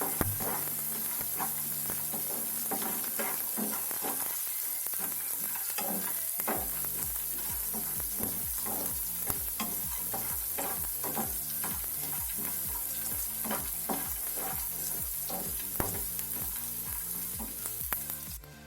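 Sliced onion frying in hot oil in a pan with garlic, chillies and curry leaves, sizzling steadily while a spatula stirs and scrapes it in quick repeated strokes. The sizzle and stirring cut off just before the end.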